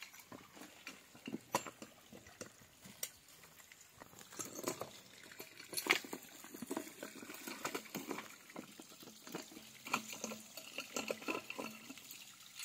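Scattered light clicks and knocks of a steel pipe wrench and hands working a blue plastic compression fitting on a water supply pipe, over faint trickling water.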